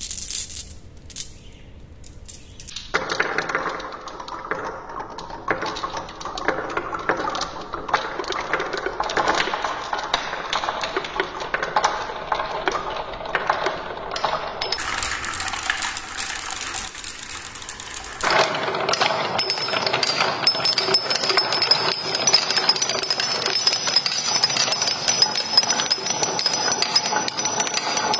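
Many glass marbles clattering down wooden marble runs, bouncing off wooden pegs and steel bars in a dense, quick rattle of clicks. After a few sparse clicks, the clatter starts about three seconds in, and its tone changes abruptly twice.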